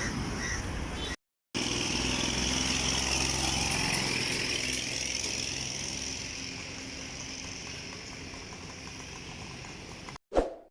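Small vehicle engine running close by, then fading steadily as it moves away. A short loud knock comes near the end.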